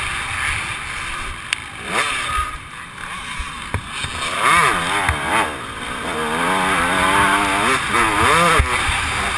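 Motocross dirt bike engine heard from the rider's helmet, revving up and down as the throttle is worked. It eases off for a couple of seconds about two seconds in, then runs through a string of quick rises and falls in pitch. A few sharp knocks come through as well.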